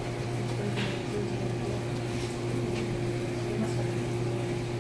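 Steady low hum of the fluid friction apparatus's electric water pump running, with a few faint clicks as the small tapping-manifold valves are handled.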